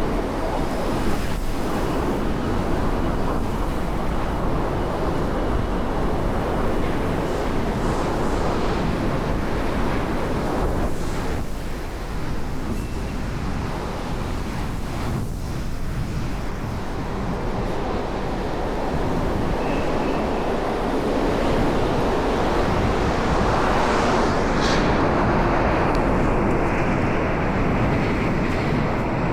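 Strong wind blowing across an outdoor microphone: a dense, unbroken rush of noise with no let-up.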